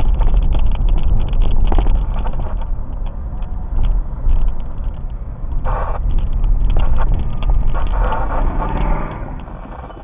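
Vehicle driving slowly on a gravel road, heard from inside the cab: a heavy low road and engine rumble with many small crunches and pops of gravel under the tyres. It grows quieter near the end.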